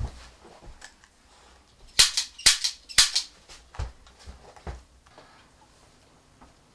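A quick run of about six sharp cracks in close pairs, starting about two seconds in, followed by a few softer thumps.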